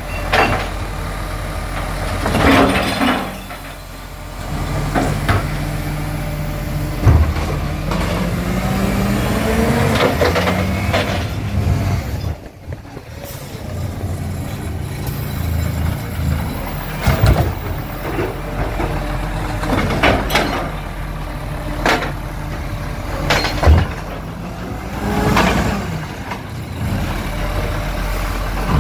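Side-loader garbage truck at work: its diesel engine running and revving up, rising in pitch about a third of the way in, with the hydraulic lift arm handling bins. Sharp knocks of bins and hisses of the air brakes come several times.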